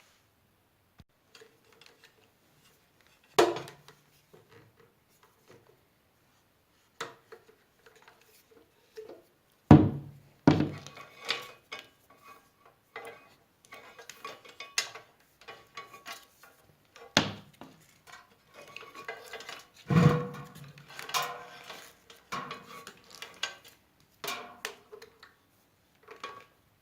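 Metal drill press parts clanking and clinking as they are handled, with a few heavy knocks, the loudest about ten and twenty seconds in, some leaving a brief ring.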